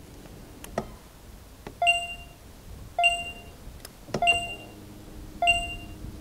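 A short electronic beep repeated four times, a little over a second apart, with a faint steady hum under the last two.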